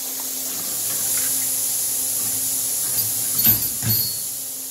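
Steady hiss and low hum of a loud hospital decontamination room. Two dull knocks come about three and a half seconds in as instruments and a brush are handled in a stainless steel sink of detergent.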